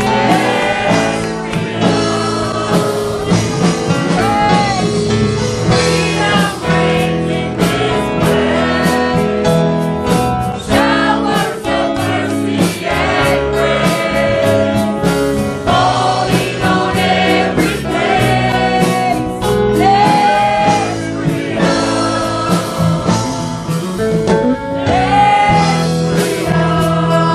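Gospel worship song: several voices singing together over a live band, with a steady drum beat.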